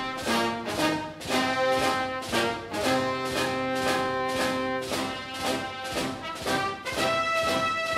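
Orchestral background music with brass playing held notes over a steady beat.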